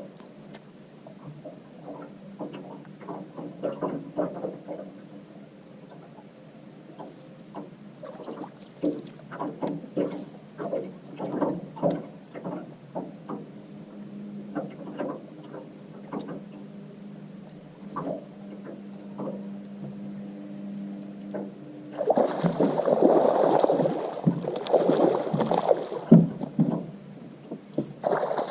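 Water slapping against a small fishing boat's hull in irregular knocks, with a steady hum for several seconds midway. A louder, rushing stretch of noise takes over for the last six seconds.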